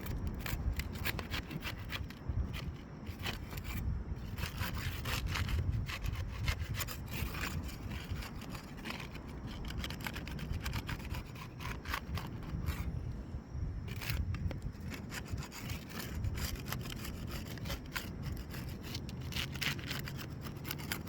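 A hand prying tool scraping and rubbing under asphalt roof shingles, working them loose from their nails, in many short, irregular scrapes and clicks.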